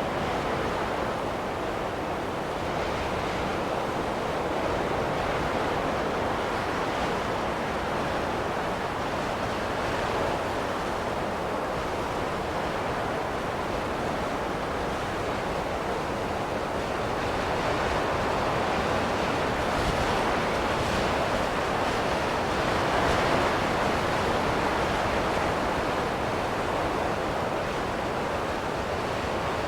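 Steady wind blowing, the sound of a snowstorm, swelling into a stronger gust about two-thirds of the way through.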